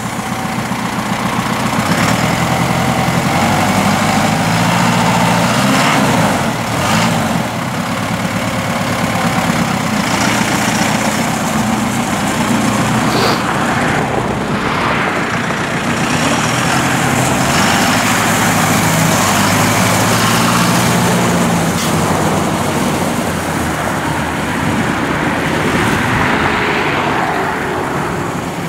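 John Deere 5100E tractor's four-cylinder turbo diesel engine running as the tractor drives, the engine note shifting now and then.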